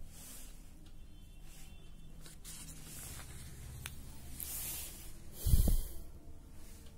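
Paper rustling as a page of a printed booklet is turned and pressed flat, with a single dull thump a little over five seconds in.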